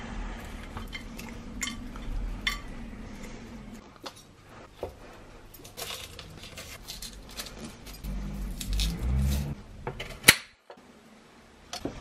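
Kitchen food-prep sounds: a knife tapping and scraping on a cutting board and garlic cloves and vegetables knocking into a ceramic baking dish, in scattered clicks and knocks. One loud sharp clack comes just after ten seconds in, after which it goes almost quiet for about a second.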